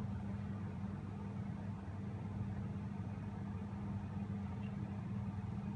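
Steady low machine hum with a constant pitched tone, unchanging throughout.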